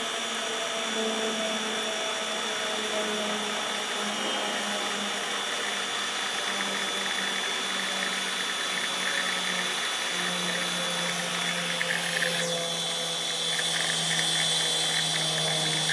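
Goulds GT07 centrifugal irrigation pump's electric motor running steadily with a hum and high whine while it pulls water up the suction line to purge the air and prime. About ten seconds in the hum drops slightly in pitch, and near the end a crackling hiss joins in and the sound grows a little louder.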